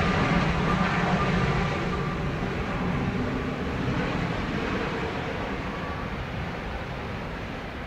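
Jet engines of an Embraer regional jet running on the landing roll as the aircraft slows on the runway, the noise fading steadily throughout.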